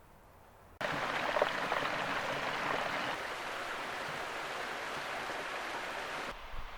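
Steady rush of flowing water. It starts abruptly about a second in and cuts off abruptly near the end.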